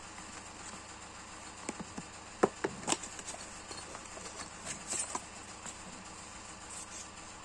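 Small cardboard box being opened and handled: a cluster of sharp clicks and scrapes as the end flap is worked open, the loudest about two and a half seconds in, then a few softer knocks and rustles near the middle as a headlight bulb in its foam sleeve is lifted out. A steady faint hiss lies underneath.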